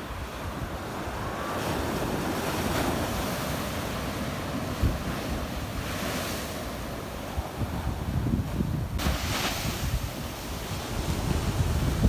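Sea waves breaking and washing up a sandy shore and over low rocks, swelling in surges every few seconds, with wind buffeting the microphone.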